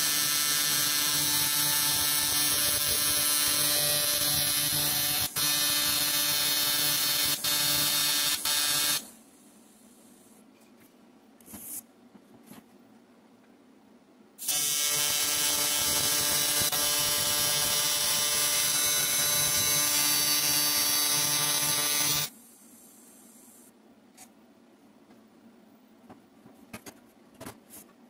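AC TIG welding arc buzzing steadily as a sensor fitting is welded onto an aluminum intake pipe. There are two passes: the first stops about nine seconds in, and the second starts about halfway through and runs about eight seconds. A few light clicks follow near the end.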